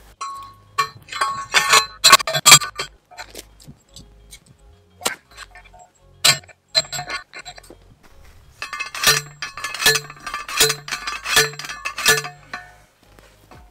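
Hand post driver striking steel fence T-posts: sharp metallic clanks, scattered at first, then a steady run of about five strikes roughly two-thirds of a second apart near the end.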